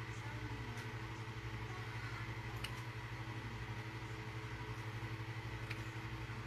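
A steady low mechanical hum with an even, slight pulse, like a motor or fan running, and three faint light clicks.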